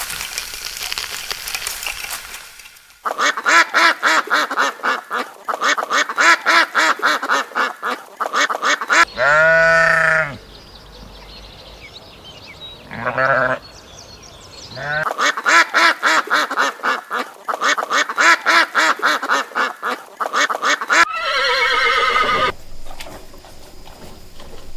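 Livestock bleating in a sequence of edited-together clips: two long calls with a fast, even wavering, and shorter single calls between them. Near the end comes a falling call.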